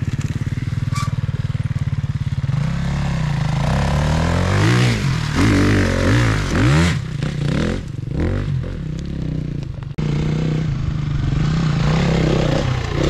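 Enduro motorcycle engine running, then revving up and down repeatedly on a steep climb. It breaks off abruptly about ten seconds in and is back to steady running.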